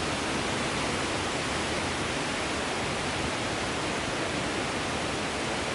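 A waterfall rushing: a steady, even noise of falling water with no breaks.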